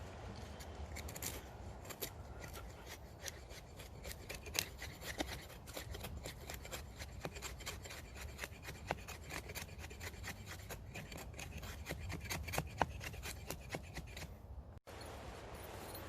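A blade scraping and shaving wood to prepare fire-lighting material: a rapid, uneven run of small rasping clicks, broken by a sudden short cut-out near the end.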